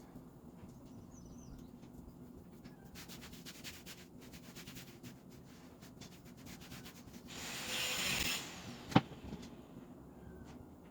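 Household cleaning sounds: a run of quick rubbing or scrubbing strokes, then a louder burst of hiss about seven seconds in, and a single sharp knock just after.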